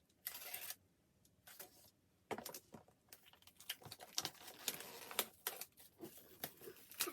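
Handling noise from unpacking an album: paper and plastic rustling, with a string of small clicks and taps that become more frequent after about two seconds.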